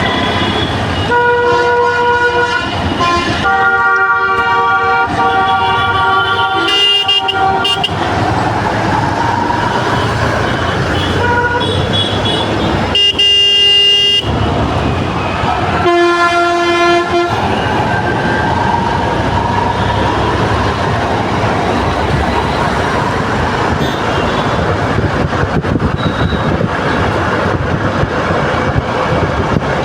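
Vehicle horns honking in stalled traffic: several long blasts of different pitches, some overlapping, over a steady rumble of engines and road noise.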